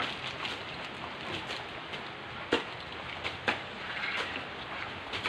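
Steady outdoor hiss of rain and open air, broken by a few sharp knocks, the two loudest about a second apart near the middle.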